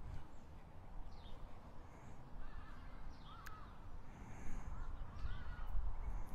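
Birds calling: a series of short, wavering calls starting about two and a half seconds in, over a low, steady rumble.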